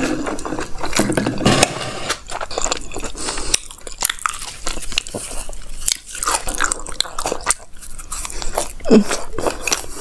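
A person chewing and biting food close to a clip-on lavalier microphone, with irregular mouth clicks and smacks throughout.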